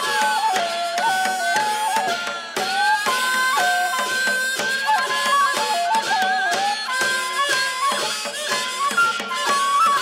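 Korean shaman ritual (gut) accompaniment music: a wind instrument plays a melody that steps between held notes, with drum strokes throughout.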